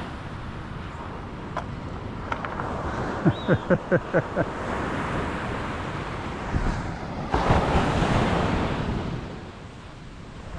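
Surf washing on a beach, with a wave breaking loudly about seven seconds in and fading away. About three seconds in there is a quick run of about seven short clicks falling in pitch.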